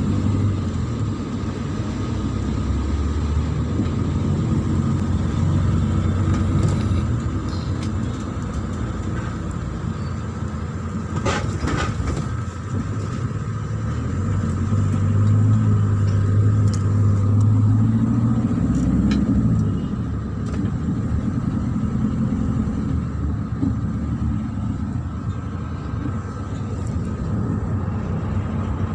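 Minibus engine and road noise heard from inside the passenger cabin: a continuous low rumble. It grows louder about halfway through, then eases off again, with a couple of brief knocks a little before that.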